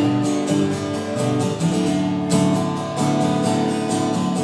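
Instrumental break in a country song: strummed acoustic guitar with band accompaniment, no singing.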